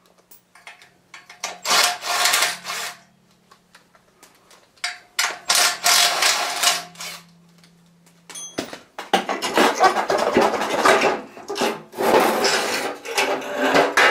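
Ratchet wrench clicking in repeated bursts of strokes, loosening the exhaust manifold nuts. The bursts get longer and denser near the end.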